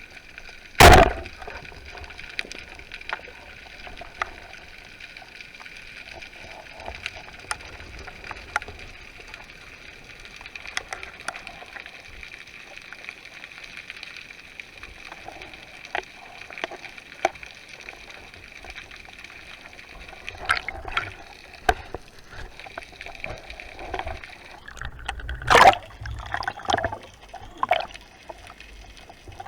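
Water gurgling and sloshing with scattered small clicks. There are two loud sudden bursts, one about a second in and one near the end, with a run of smaller bursts just before the second.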